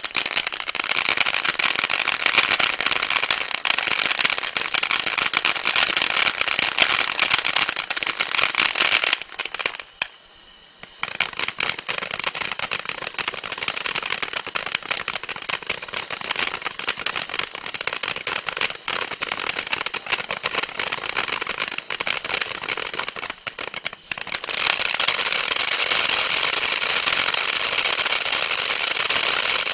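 Bright Star Pot Mums firework burning with a continuous, dense crackling hiss. About ten seconds in it drops off for a second before picking up again, and it gets louder from about twenty-four seconds in.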